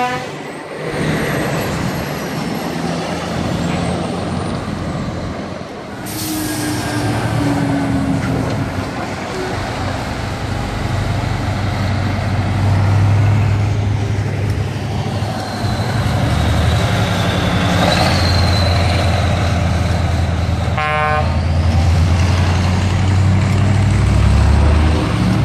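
Diesel engines and tyres of heavy semi-trailer trucks driving past one after another, the engine drone growing louder in the second half as a truck passes close. There is a brief hiss about six seconds in and a short horn toot a little past two-thirds of the way through.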